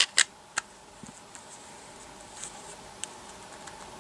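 Clicks and taps of an iPhone 4's glass back panel being fitted onto the phone's frame: three sharp clicks in the first second, then a few faint ticks as it is pressed into place.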